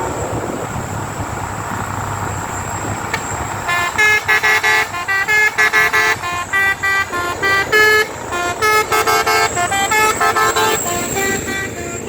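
Basuri multi-tone telolet horn playing a fast tune of short, changing notes, starting about four seconds in and stopping just before the end. Under it is a steady background of vehicle noise.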